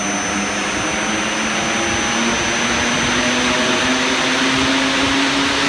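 Fans of a portable forced-air precooler speeding up toward full speed under variable-frequency-drive control: a loud rush of air with a low hum that rises slowly in pitch.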